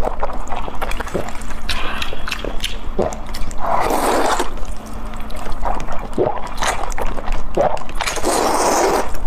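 Noodles slurped in three long, wet pulls, with short clicks and chewing sounds between them.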